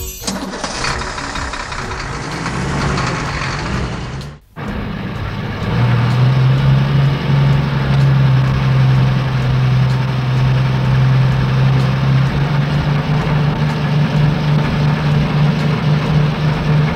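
A vehicle engine sound effect. It starts with a noisy, rough stretch, breaks off briefly about four and a half seconds in, then settles into a loud, steady running hum that rises a little in pitch about twelve seconds in.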